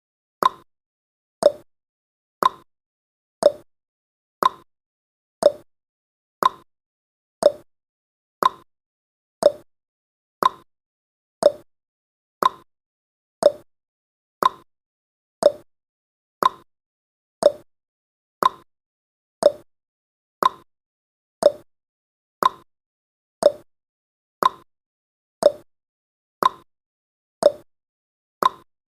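Clock-style tick-tock sound effect of a countdown timer: one short, sharp tick every second, alternating between a higher and a lower tick.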